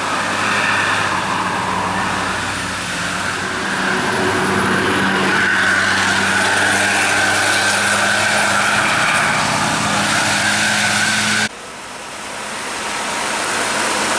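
Road vehicle, likely a bus, running past with engine hum and hissing tyre noise on a wet road. The sound swells about four seconds in and breaks off abruptly near the end, then builds again.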